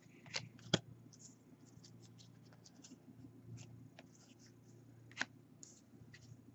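Topps baseball cards being handled and flipped through one by one, with faint scraping and rustling of card stock. A few sharp clicks come through, the loudest just under a second in and another a little after five seconds.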